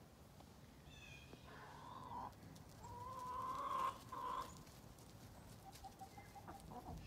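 Partridge Cochin hens calling: a few drawn-out calls, the longest about a second, then a quick run of short clucks near the end.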